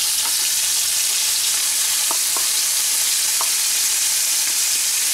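Hot oil sizzling steadily in a nonstick kadai with bay leaves, dried red chillies, cumin seeds and tomato, as a wet ginger and green chilli spice paste is added. A few light clicks sound about two to three and a half seconds in.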